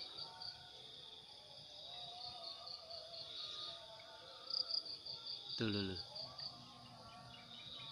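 Insects, crickets or similar, calling steadily: a continuous high buzz with a pulsed chirping of about five beats a second on top. A brief voice cuts in a little under three-quarters through.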